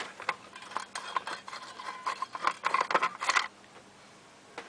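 Screwdriver undoing a heat-sink retaining screw inside a Dell GX520 desktop: a quick run of small metallic ticks and clicks for about three and a half seconds, then it stops, with one last click near the end.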